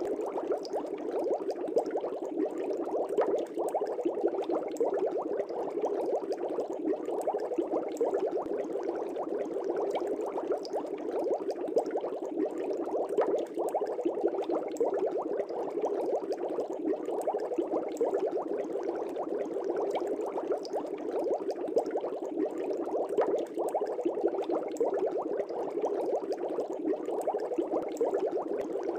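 Air bubbles rising through a fish tank's water, a steady, unbroken bubbling with many small pops.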